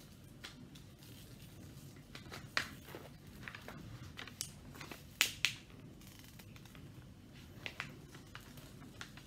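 Rustling and crackling of a diamond-painting canvas and its paper cover as it is handled and smoothed flat on a table, with a few sharp crackles, the loudest about five seconds in.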